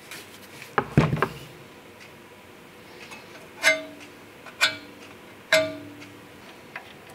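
Metal car suspension parts handled on a wooden workbench: a heavy knock about a second in, then three sharp metallic clinks a little under a second apart, each ringing briefly.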